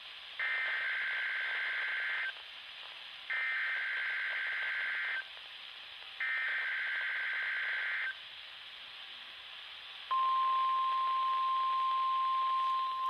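NOAA Weather Radio weekly test tones played through a Midland WR400 weather radio's speaker: three bursts of SAME digital header data, each a buzzy two-tone warble about two seconds long, a second apart. About ten seconds in, the steady single-pitch 1050 Hz warning alarm tone begins.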